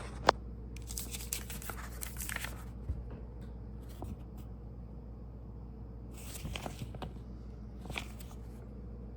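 Cardboard box and paper packaging being handled and rustled, in short bursts, with one sharp click just after the start as the box is opened.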